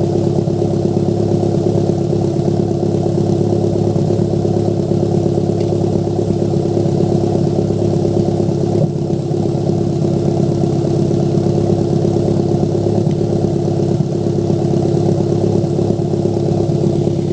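Toyota MR2 Turbo's turbocharged four-cylinder engine running at a steady idle with an uneven, popping exhaust note, the sign of a misfire.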